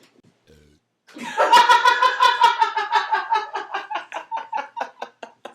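A long, high-pitched laugh starting about a second in: a rapid string of pulses that slows and fades over about four seconds.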